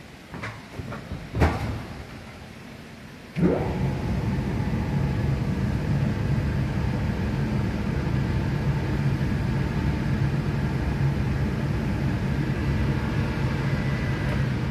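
A few knocks, then an automatic glass cutting and loading table's motor starts suddenly about three seconds in, briefly rising in pitch as it spins up, and runs on as a steady low hum.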